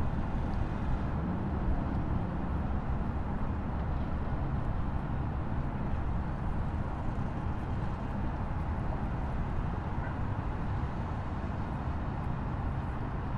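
Steady rushing roar of a waterfall, heaviest in the low end and unchanging throughout.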